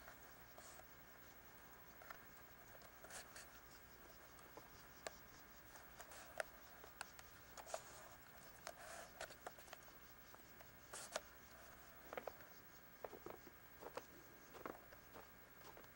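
Near silence: a steady faint hiss with scattered small clicks and light rustles, more frequent in the second half.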